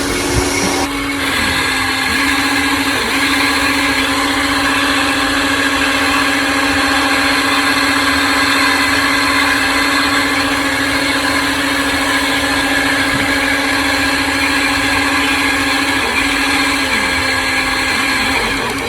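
Small electric motor of an RC construction machine whining steadily at one pitch, with brief dips in pitch about a second and a half in and again near the end.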